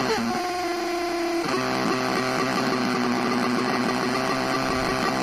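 A faulty CRT television's speaker giving out a loud, buzzy hum full of overtones, falling in pitch at first and changing tone about a second and a half in. This hum with no picture is the symptom of a no-raster fault, and the set fails to come on.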